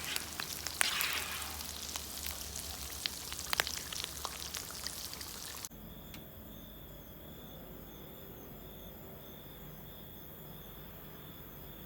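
Potato-and-chicken drumsticks frying in oil: a steady sizzle with sharp pops. About halfway through it cuts off suddenly, and crickets chirp in a steady pulsing rhythm.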